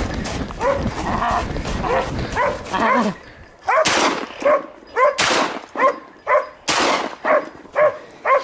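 Hunting dogs barking at a boar in quick repeated barks, about two a second, with three harsher noisy bursts between about three and seven seconds in.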